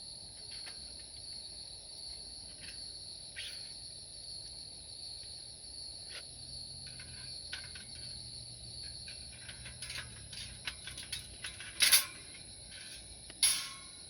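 Insects chirping in a steady high-pitched chorus, with a series of clicks and handling knocks toward the end and two sharp, loud knocks near the end.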